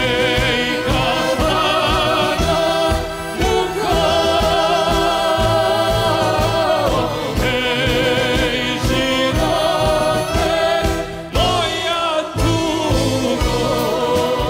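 Male singer with a live folk band of accordion, violins, drums and guitar performing a Serbian kafana ballad. The voice holds long, wavering notes over the full band.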